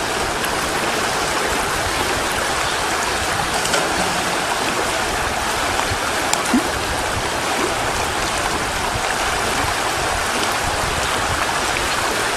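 River in flood rushing steadily: muddy storm runoff running at a flow estimated at about 1,500 to 2,000 cubic feet per second, with a couple of faint clicks.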